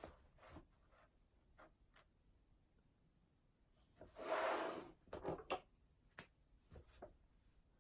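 Quiet desk sounds of someone studying: light taps and clicks of pen and stationery, with one brief louder rustle about four seconds in.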